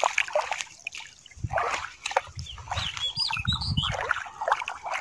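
Shallow river water splashing and sloshing, with many small wet clicks. A few short, high bird chirps come around the middle.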